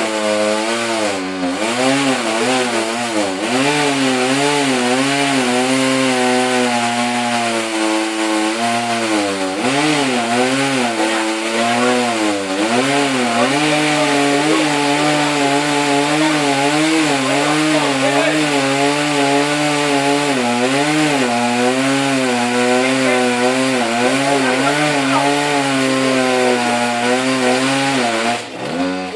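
Two-stroke chainsaw cutting into a dead tree, its engine pitch dipping and rising as the chain loads up in the cut. It drops off about a second before the end.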